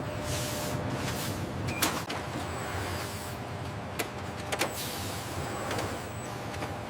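Steady mechanical hum with a few sharp clicks, the loudest about two seconds in and two more around four seconds in, and short hissing sweeps.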